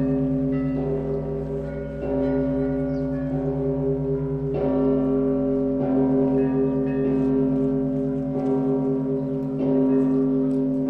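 Russian Orthodox monastery bells ringing a festal peal: several bells of different pitches struck again and again, their tones overlapping and ringing on, over the low, pulsing hum of a large bell.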